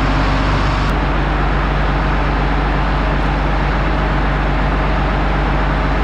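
Steady loud rushing machine noise with a low hum. The hum shifts about a second in.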